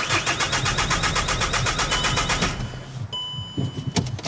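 Car starter motor cranking in a rapid, even rhythm without the engine catching, for about two and a half seconds before it stops: the car won't start. A couple of sharp clicks come near the end.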